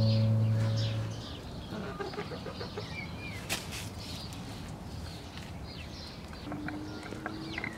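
Background music fades out about a second in, leaving backyard hens clucking quietly amid many short high chirps. A faint low steady tone comes in near the end.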